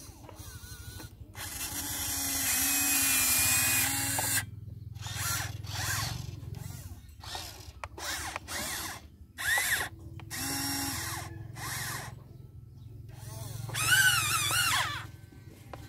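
Small electric motors and gearboxes of a radio-controlled Volvo excavator whining in stop-start bursts as the boom, arm and bucket move and the upper body swings. The longest run comes about a second in and lasts about three seconds; near the end a louder whine wavers up and down in pitch.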